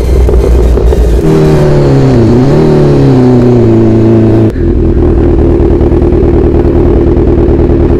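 Kawasaki Z1000's inline-four engine running while the bike is ridden, heard from the rider's helmet. Its note dips and falls in pitch over the first few seconds, then changes suddenly about halfway through to a steady, even note.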